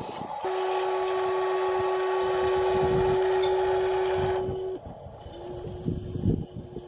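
Electric motor and gearing of a remote-control model whining at a steady pitch for about four seconds, then cutting out, with shorter spells of the same whine starting and stopping near the end.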